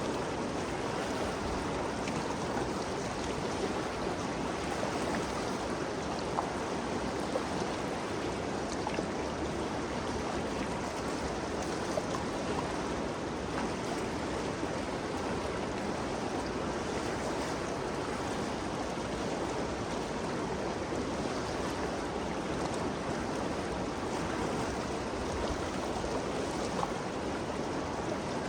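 The Ganges River flowing, a steady, even rush of moving water with small splashes and gurgles.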